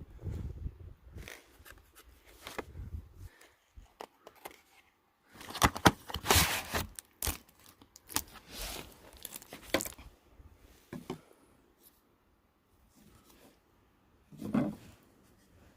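Packaging being torn open and crinkled by hand in irregular bursts, loudest in the middle.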